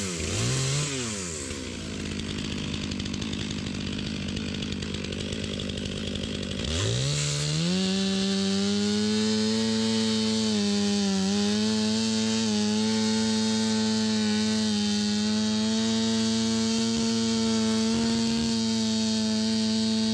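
Two-stroke chainsaw blipped once and left idling, then throttled up to full speed about seven seconds in and held there, cutting through wood slabs, the note dipping slightly as the chain bites.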